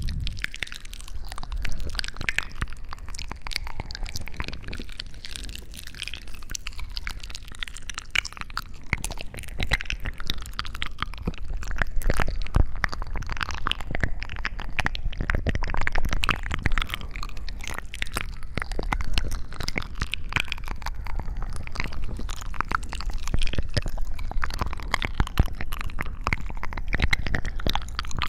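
Close-miked ASMR sounds: a steady, dense stream of small wet crackles, clicks and squishes.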